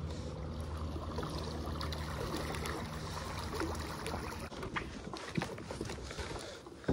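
MotorGuide Xi3 electric trolling motor on a kayak's bow running, a steady low hum with water churning, fading out about four seconds in.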